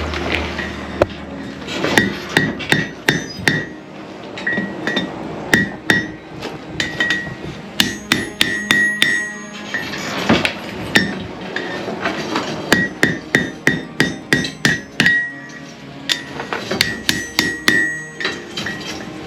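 Blacksmith's hammer striking hot iron on an anvil in quick runs of blows, each blow ringing with a high, clear tone, with short breaks between the runs.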